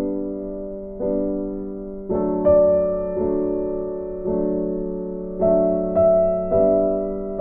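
Soft background music on electric piano or keyboard: slow sustained chords that change about once a second, each fading after it is struck.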